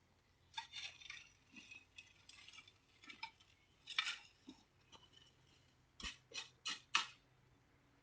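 Irregular light clicks and clinks of hard objects knocking together, ending with four sharper clicks about a third of a second apart.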